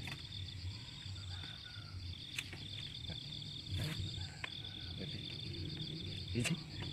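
Steady, pulsing trilling of crickets or similar night insects, in a high chorus. A few short clicks and knocks come through over it, from a plastic pipe being handled.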